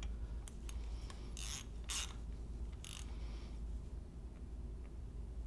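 A few short scrapes and clicks of engine parts being handled as the timing chain guide rails are fitted to the engine.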